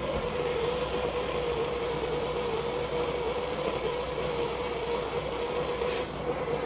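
Gas blowtorch flame burning steadily with a constant hum-like tone, heating a fluxed copper pipe fitting to soldering temperature.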